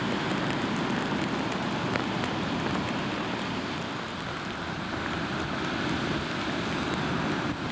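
Steady rain and wind on the microphone, a dense even rushing hiss with faint scattered ticks of drops.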